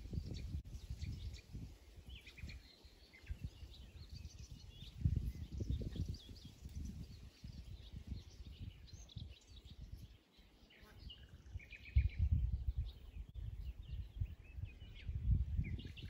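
Wild birds chirping in short, high calls over a gusty low rumble of wind on the microphone, which swells about five seconds in and again from about twelve seconds.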